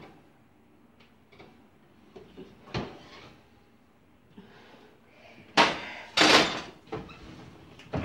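A metal baking sheet being taken out of an electric oven and set down on the stovetop, with the oven door banging shut. A light knock comes about three seconds in, then two loud clattering knocks about five and a half and six seconds in.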